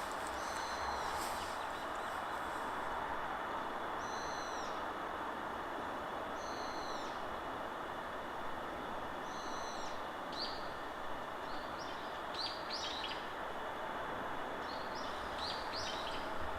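Steady forest wind with short, high bird calls every couple of seconds, coming in quicker clusters of chirps in the second half.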